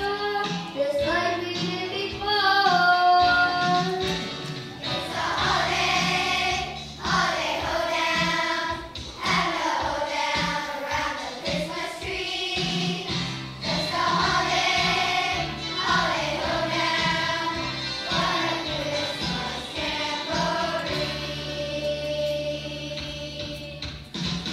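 A group of children singing a song together in phrases, over an instrumental accompaniment with a steady beat.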